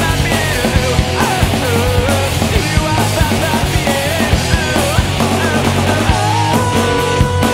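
Loud rock music with a fast drum beat and a wavering melody line.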